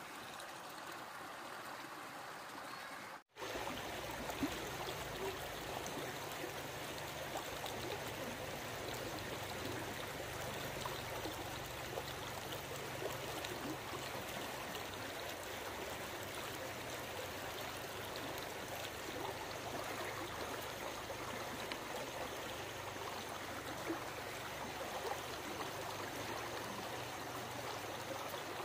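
Steady rush of flowing water, like a stream. It cuts out for an instant a little over three seconds in, then carries on slightly louder.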